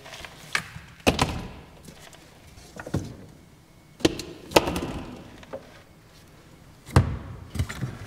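Large plastic drink bottles being handled and set down into a plastic compressor cool box: a string of knocks and thuds with some rustling between them, the sharpest about a second in and near the end.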